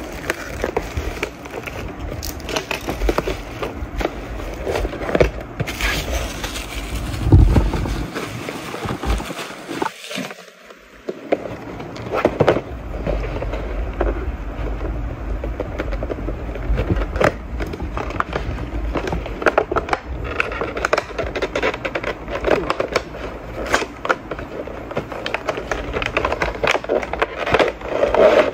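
Plastic shrink-wrap being peeled and crinkled off a cardboard gimbal box, then the box being handled and slid open against a wooden table. The rustling and scraping is continuous and full of small clicks, with a brief lull about ten seconds in.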